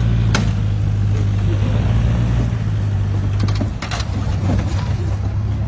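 A recovery truck's engine running with a steady low hum while it pulls a car up a bank on a tow rope. The hum drops away a little past halfway, with a few sharp knocks around then.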